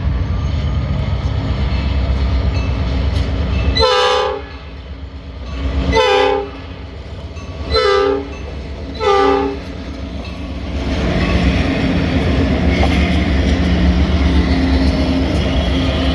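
Diesel freight locomotive air horn, several notes sounding together, giving four short blasts about two seconds apart for a grade crossing, over the steady rumble of the approaching train. After the horn stops, the rumble grows louder as the locomotives and freight cars roll past.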